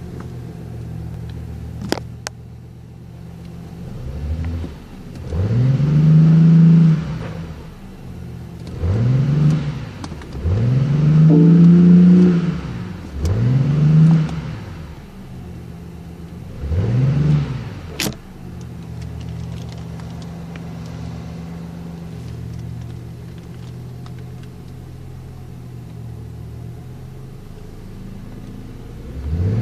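BMW i8's 1.5-litre turbocharged three-cylinder petrol engine idling in Park, heard from inside the cabin, blipped five times in quick succession, each rev rising and falling back, before settling to a steady idle. A sharp click sounds about 2 seconds in and another about 18 seconds in.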